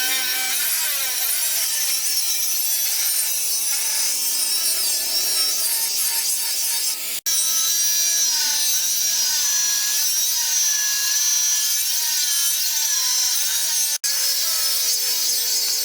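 Power tool grinding or cutting steel: a continuous harsh rasp with a motor pitch that wavers as the load changes. It cuts out abruptly twice, about seven and fourteen seconds in.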